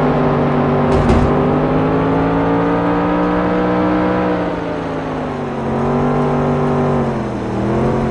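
Dirt-track race car engine running under varying throttle, its pitch slowly climbing, easing off, then dipping sharply near the end before picking up again.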